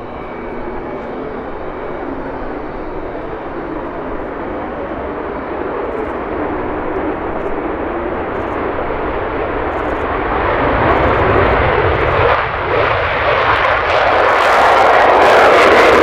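F-35A Lightning II's Pratt & Whitney F135 afterburning turbofan at full power on takeoff, a steady jet rush that grows louder as the jet accelerates and lifts off. About two seconds before the end it turns much harsher and brighter as the jet, in afterburner, nears.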